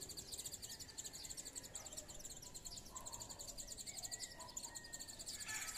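Outdoor morning ambience: insects trilling steadily in a high, rapid pulse, with faint bird calls over it and a louder call starting near the end.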